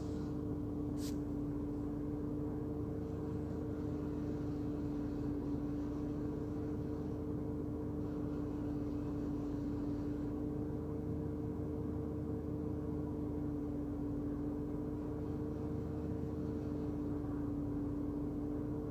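Steady mechanical hum with a constant low tone that does not change.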